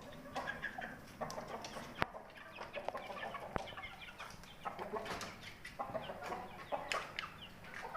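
A flock of chickens clucking and calling in many short, overlapping calls, with two sharp clicks about two and three and a half seconds in. The birds have caught ngorok, a contagious, snoring, cold-like respiratory disease.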